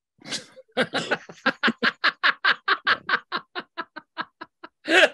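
Hard laughter: a quick run of breathy ha-ha pulses, about five a second, that slows and fades, with a louder burst near the end.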